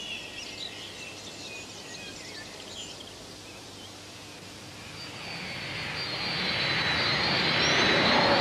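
Birds chirping faintly. From about five seconds in, an aircraft's engine noise swells steadily louder as it approaches, with a high, rising whine.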